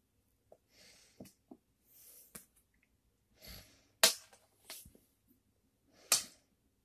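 A kitten pouncing and batting at a dangled plastic ribbon on a wooden floor: short soft rustles and light taps, with two sharp knocks, one about four seconds in and one about two seconds later.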